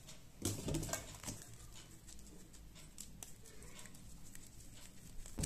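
Hands scooping and squeezing sticky puffed rice with sesame in a metal pan: soft crackling and scattered small clicks, with a louder cluster of knocks and rustles about half a second to a second and a half in.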